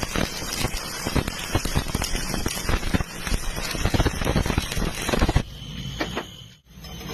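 Electric arc welding: the arc crackling and sputtering steadily, then cutting off about five and a half seconds in, leaving a quieter hum.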